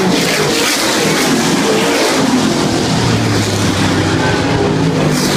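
Dirt-track race car engines running on a dirt oval, several cars at once, their engine notes shifting up and down in pitch as they lap.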